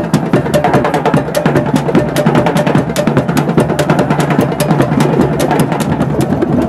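Drum circle: many hand drums played together in a fast, dense, steady rhythm.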